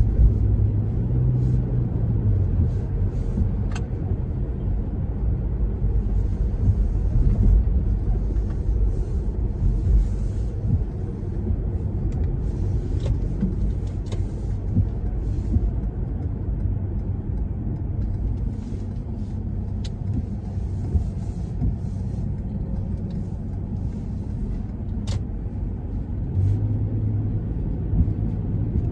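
Car driving at town speed, heard from inside the cabin: a steady low rumble of engine and tyres on the road, with a few faint isolated clicks.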